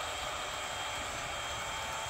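Hornby TT:120 Class 43 HST model train running round the track: a steady whine over an even hiss that holds level throughout.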